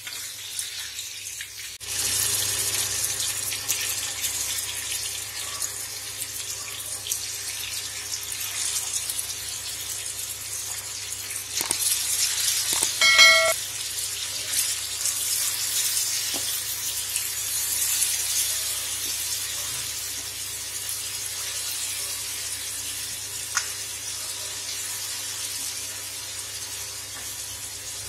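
Marinated chicken pieces sizzling in hot oil in a pan, the sizzle jumping up about two seconds in as a fresh batch goes into the oil and then running on steadily. A brief ringing tone about halfway through is the loudest moment.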